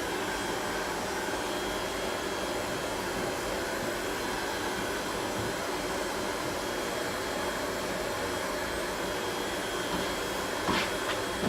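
Steady whooshing hum of an air-moving machine, with two short clicks near the end.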